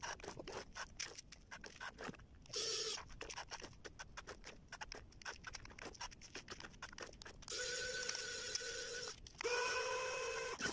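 Small electric gear motors of a cardboard RC forklift working, with irregular rapid clicking and ticking. A brief motor whine comes about two and a half seconds in, then two steady whines of about a second and a half each near the end as the forklift sets its cardboard container down on the wagon.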